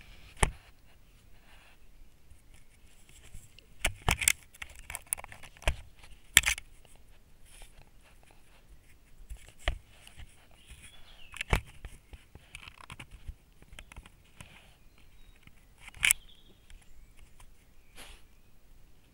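A badger nosing and rubbing right against a trail camera: its fur and claws scrape and rustle on the casing, with a sharp knock every few seconds.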